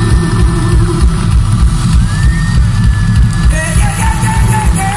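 Live blues-rock band playing loud and bass-heavy: a steady drum and bass beat under a held melody line that slides in pitch.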